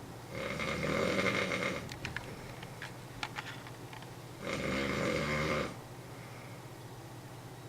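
A man snoring heavily: two long, loud snores about four seconds apart, with a few short clicks in between.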